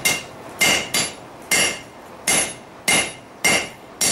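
Hand hammer striking the red-hot end of a steel bar stood upright on the anvil, about eight evenly spaced blows, each with a bright metallic ring: upsetting the bar's end to flare it.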